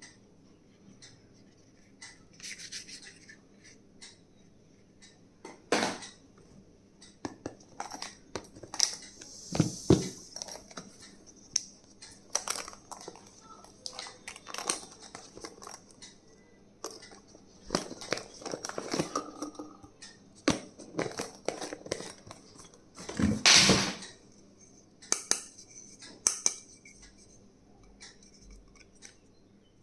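Stationery being handled and unpacked by hand: scattered taps, clicks and rustles of packaging, with one longer, louder rustling scrape near the end.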